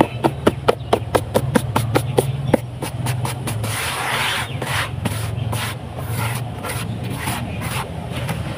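Dry, dusty sand-and-cement mix with small stones being crumbled and sifted by hand in a plastic bucket. A quick run of crisp crackling clicks comes first. About four seconds in there is a hiss of grains pouring, followed by scattered softer crackles, all over a steady low hum.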